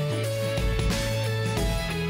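Background music: guitar chords changing about every half second over a steady bass.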